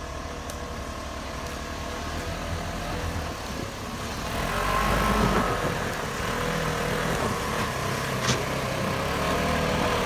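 Engine of a side-by-side utility vehicle running under load as it tows a travel trailer on a skid across snow, growing louder as it passes close about halfway through.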